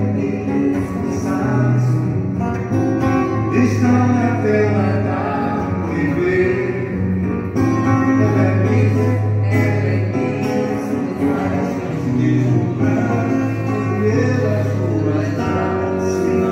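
A live song: an acoustic guitar played as accompaniment to singing, picked up through microphones and a small amplifier.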